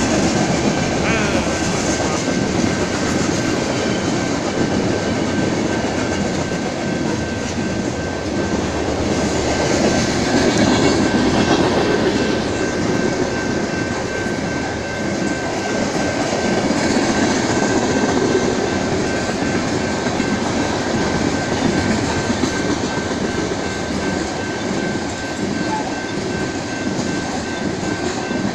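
BNSF coal train's coal cars rolling past, a steady loud rumble of steel wheels on the rails, with a thin steady high tone running under it.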